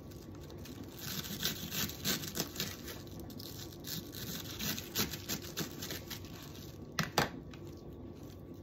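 Knife slicing through a wedge of raw green cabbage on a plastic cutting board: a quick run of crisp, crunchy cuts, with two sharper knocks near the end.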